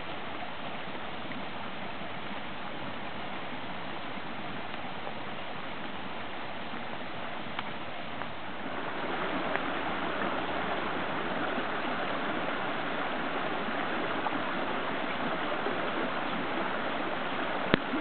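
Muddy storm runoff rushing down a small wooded gully and through tangled branches: a steady rush of water that grows louder about halfway through. A single sharp click just before the end.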